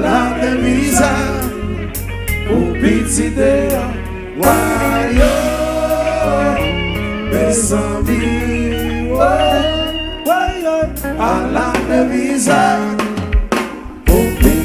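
Live Haitian konpa band playing: a lead singer sings the melody over drum kit, congas, guitar, keyboard and a steady bass line.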